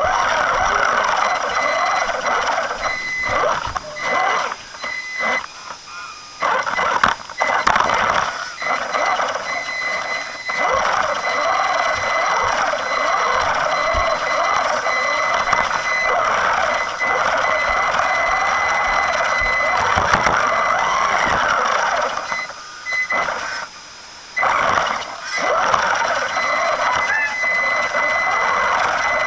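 WLToys A979 electric RC truck's motor and gears whining up close on the car itself, with a steady high tone over the gear noise. The whine cuts out and comes back several times as the throttle is let off and applied, with a longer break a little after the middle.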